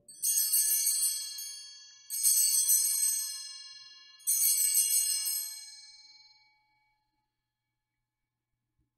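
Altar bells (Sanctus bells) shaken three times, about two seconds apart, each a bright jingling ring that dies away; they mark the elevation of the chalice at the consecration.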